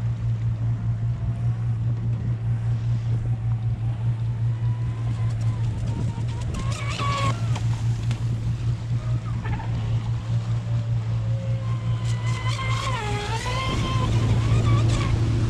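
Steady low drone of a full-size motorboat's engine under way, with water and wind noise. Over it, a thinner whine rises and falls twice, about six seconds in and again near the end: the RC boat's brushless electric motor being throttled.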